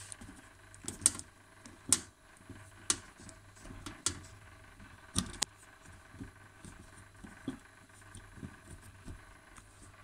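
Irregular sharp clicks and taps of wire and hands working against the stove's sheet-metal back as the neutral wire is forced into its terminal. The loudest come roughly once a second at first, then smaller ones follow.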